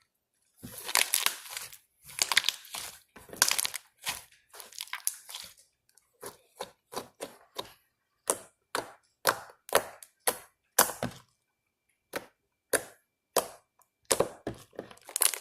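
Homemade glue slime being squished and worked, crackling for the first few seconds, then a run of short, sharp pops about two a second.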